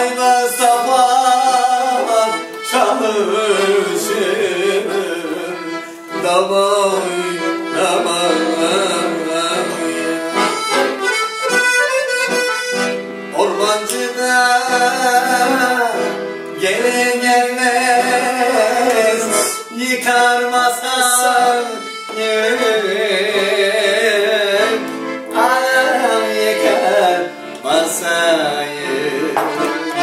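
Piano accordion playing an ornamented instrumental folk melody in phrases, with brief dips between them.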